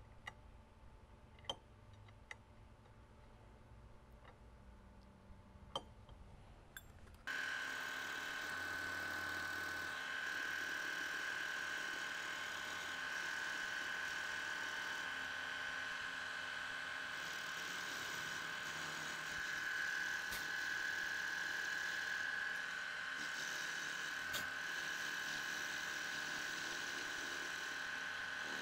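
A few light clicks of small metal parts being handled, then from about seven seconds in a vertical milling machine running, its end mill cutting into a Peabody rifle's steel breech block with a steady high whine.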